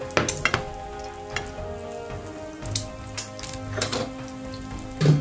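Egg frying in hot fat in a pan, a steady crackling sizzle. Sharp knocks and clinks of dishes come in a cluster just after the start and again near the end.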